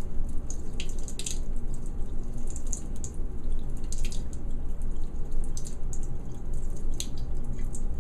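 Deionized water squirted from a plastic wash bottle onto the cadmium pins of a microplate-lid nitrate reductor, running off and dripping into a lab sink. It makes a steady trickle with irregular splashing drips. This is the rinse that clears off the acid cleaning solution.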